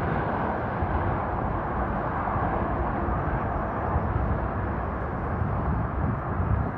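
Freight train rolling across a bridge: a steady, dense rumble that holds at an even level throughout.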